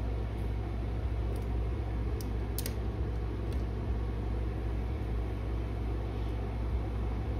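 Steady low rumble with a few faint clicks between about one and four seconds in.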